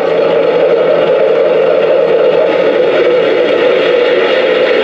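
Remote-control Sherman tank's built-in sound unit playing a loud, steady engine-running sound while the tank stands still.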